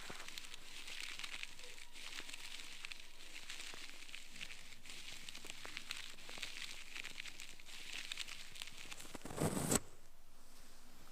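Ear pick scraping inside an ear canal close to the microphone: a steady crinkly scratching made of many small clicks. A louder rustling burst comes about nine and a half seconds in.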